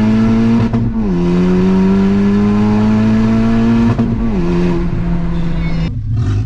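Honda Civic Type R FK8's 2.0-litre turbocharged four-cylinder under hard acceleration, running with only a catless downpipe and no rest of exhaust. It is very loud inside the cabin. The engine note climbs steadily, drops at an upshift about a second in and again about four seconds in, climbs again after each, then falls away near the end as the throttle closes.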